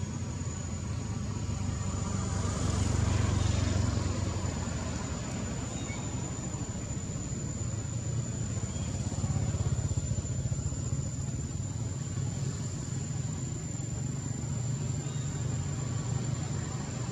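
Low, steady rumble of distant motor traffic, swelling about three seconds in, with a thin, steady high whine running over it.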